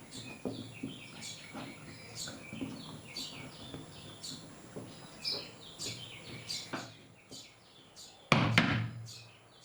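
Birds chirping, many short quick calls, with faint scattered knocks underneath. A much louder sound comes in suddenly about 8 seconds in.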